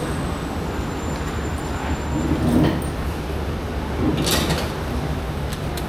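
Steady low background rumble with a few short hissy swells, about two and a half and four seconds in; no speech.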